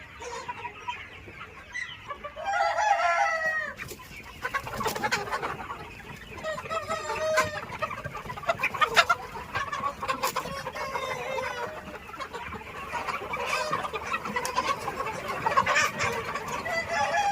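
A flock of Sonali chickens clucking and calling, with one long crow about two seconds in, the loudest call, followed by many short, irregular clucks.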